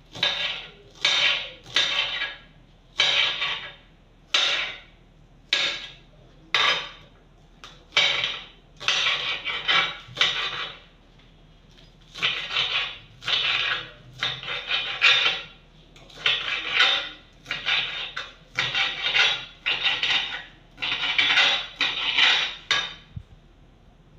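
Chef's knife chopping onions and spring onions on a cutting board: runs of quick knocks of the blade against the board, separated by short pauses.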